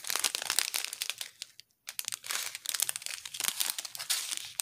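Small clear plastic bags of square diamond-painting drills crinkling as they are handled and shuffled between the hands, a dense crackle with a brief pause about a second and a half in.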